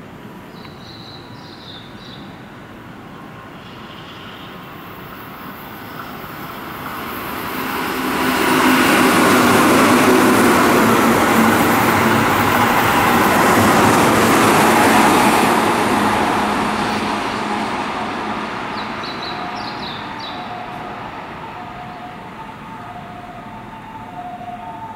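Keihan 8000 series limited express electric train passing through the station at speed: wheel and rail noise swells over a few seconds, stays loud for several seconds, then slowly fades. Near the end a two-tone emergency siren alternates high and low in the background.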